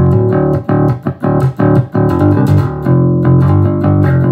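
Electric bass played through a Fender Rumble 25 V3 combo amp with its overdrive on and the contour off. A quick run of plucked notes gives way to longer, held notes in the last second or so.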